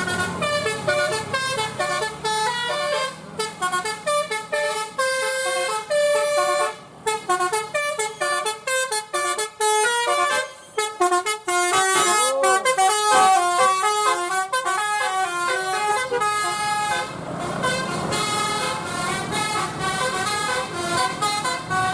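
Bus 'telolet basuri' musical air horn playing a fast tune of short stepping notes, with one note sliding up and down about halfway through. Engine noise runs underneath.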